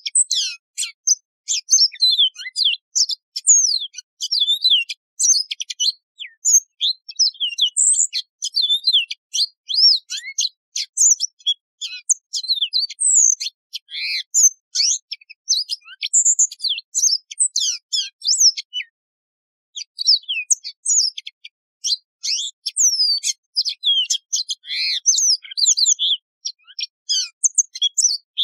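Yellow-fronted canary singing a long, fast, unbroken run of high twittering notes and quick slurred whistles, with one short pause about two-thirds of the way through.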